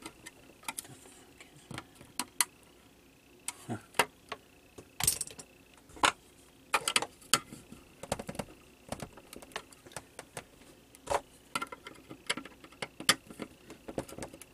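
Irregular sharp clicks, taps and light clatter of a screwdriver and fingers working on a plastic power-supply case as its screws come out and the case is pried open.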